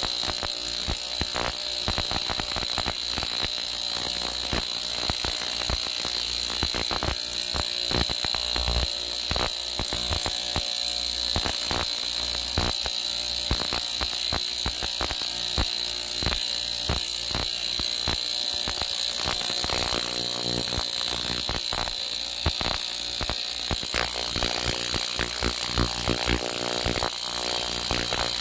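Ultrasonic cleaner running with a sheet of aluminium foil in its basket: a steady high-pitched whine under dense, irregular crackling, the sound of cavitation in the bath, which is eating holes in the foil.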